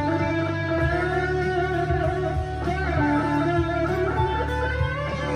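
Harley Benton CST-24T electric guitar with P90 pickups, driven through a Harley Benton Plexicon overdrive pedal into a Blackstar HT-1R valve amp, playing sustained lead notes with string bends and vibrato.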